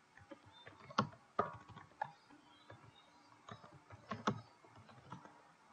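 A handful of separate key taps on a computer keyboard as a name is typed slowly, the loudest about a second in and just after four seconds.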